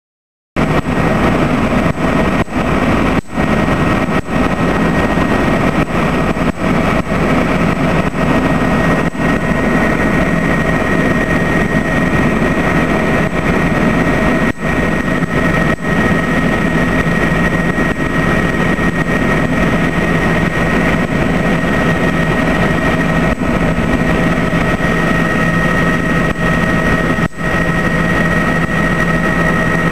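Helicopter in flight, heard from inside the cabin: a steady engine and rotor drone with a constant high whine over it. It starts abruptly about half a second in and barely changes.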